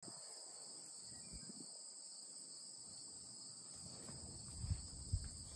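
Steady high-pitched chorus of insects in the pasture grass, with a few soft low thumps about two-thirds of the way in.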